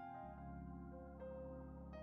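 Quiet background music: soft ambient keyboard chords held over a steady bass note, with a new note coming in about a second in and again near the end.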